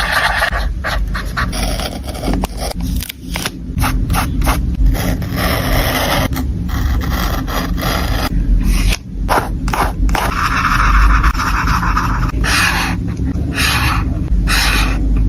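Paper and stationery being handled on a desk: scraping and rubbing strokes in patches of a second or two, broken by short pauses.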